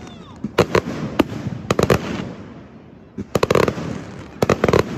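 Fireworks going off: sharp bangs in quick clusters of two to four, about five volleys, each followed by a fading echo.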